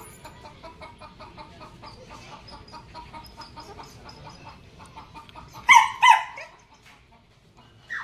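Caged Alexandrine parakeets chattering softly in a quick, even run of short calls, then two loud calls in quick succession about six seconds in.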